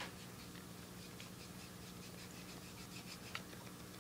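Cue chalk being rubbed onto a pool cue tip: faint, repeated dry scratching, with one slightly sharper tick near the end.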